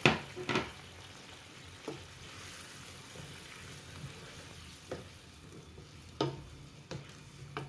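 A plastic spatula stirring chunks of chayote and sardines in a nonstick frying pan of simmering sauce, with a steady low sizzle. The spatula knocks against the pan a few separate times, loudest right at the start.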